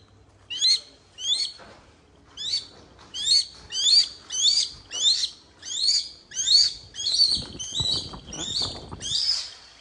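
A hawk calling over and over in short, high, rising cries, about two a second and quickening toward the end, with a brief flutter of wings as it jumps off the glove.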